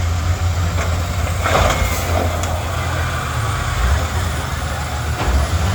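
Heavy school-bus engines rumbling and revving in a demolition derby, with a couple of sharp knocks, about a second and a half in and again near the end.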